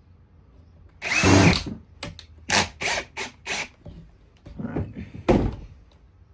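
Power screwdriver or drill driving a screw in two short runs, the second about five seconds in. Plastic clicks and knocks come between the runs as a part is fitted to a Shark vacuum.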